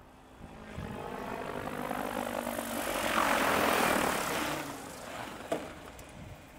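Diabolo electric RC helicopter, its main rotor governed at about 1800 rpm by an HK 4525 520 brushless motor, passing close: the rotor whoosh and motor whine swell, are loudest three to four seconds in, then fade. A single sharp tick comes about five and a half seconds in.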